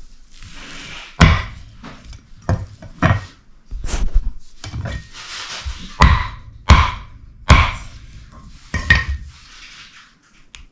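About eight heavy chopping blows on wood at an irregular pace, roughly a second apart, with a soft hiss between some of them.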